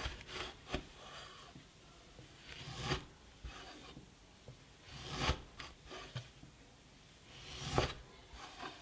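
A freshly sharpened Japanese kitchen knife slicing through rolled fabric strips on a wooden cutting board: four strokes about two and a half seconds apart. Each is a short rasping cut that ends in a knock.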